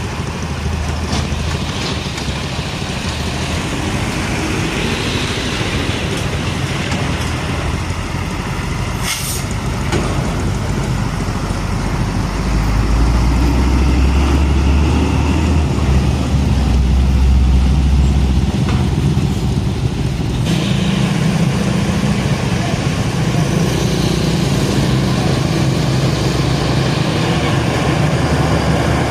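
Heavy diesel trucks running past in traffic, a steady low engine rumble that grows louder about twelve seconds in and shifts note near twenty seconds. A short hiss of air from an air brake cuts through about nine seconds in.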